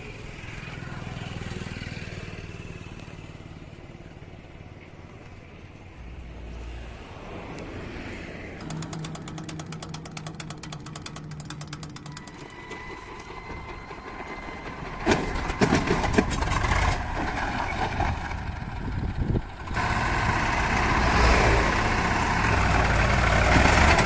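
Swaraj tractor's diesel engine: a few seconds of rapid clicking near the middle, then loud uneven noise from about fifteen seconds in, then the engine running steadily and louder from about twenty seconds in.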